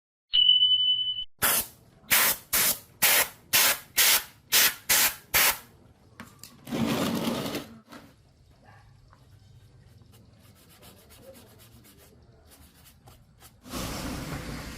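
A brief steady high tone, then a run of about nine short hissing spray bursts at roughly two a second, followed by one longer hiss.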